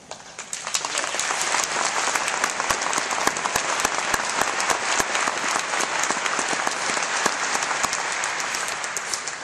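Audience applauding, rising within the first second and then holding steady.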